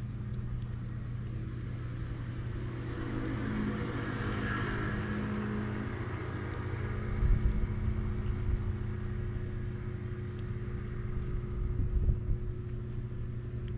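A steady, low engine hum, with a louder engine sound swelling and fading about four to five seconds in; a few dull low thumps later on.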